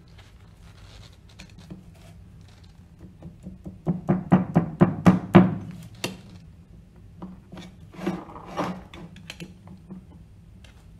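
Metal clinking and knocking as tools and loose parts are handled on a cast-iron pump seal cover resting on a wooden pallet during dismantling of the shaft seal. A quick run of sharp taps comes about four to six seconds in and a few lighter clicks about eight seconds in, over a steady low hum.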